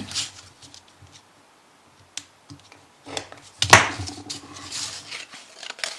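Razor knife cutting through a thin sheet of wood veneer, with small clicks and taps as the veneer is handled, then a longer scratchy cut starting sharply near the middle.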